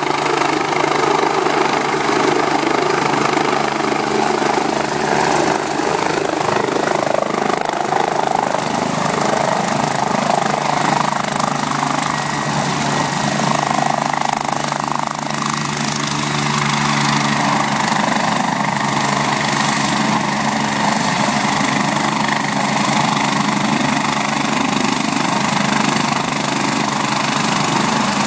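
BK117 twin-turbine helicopter's turbines and rotors running steadily and loudly as it settles onto the ground and keeps turning on the ground.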